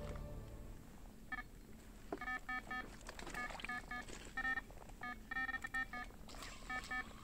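Electronic carp bite alarm giving short, fairly faint beeps in irregular quick runs of two to six: line being pulled through the alarm as a carp takes the bait.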